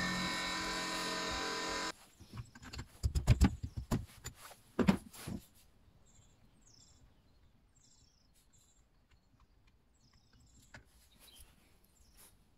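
A steady, even hum cuts off suddenly about two seconds in. It is followed by several loud knocks and clatters of the plastic and metal parts of a Stihl MS 231 chainsaw being handled, then a few quiet clicks.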